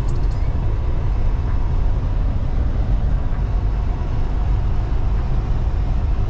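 Semi-truck driving, heard from inside the cab: a steady low drone of engine and road noise that does not change.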